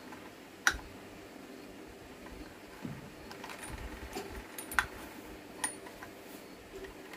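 Metal tools clinking and tapping against a small electric motor's casing and end cap while it is worked on by hand, with a few sharp clicks; the loudest come about half a second in and just before five seconds.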